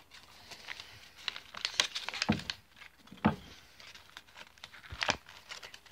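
A sheet of paper rustling and crinkling as it is folded and creased by hand into an origami fortune teller, with a few sharper crackles scattered through.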